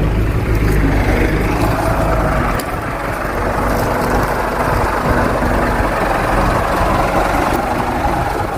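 A heavy vehicle's engine running steadily, with a deep rumble that eases slightly about two and a half seconds in.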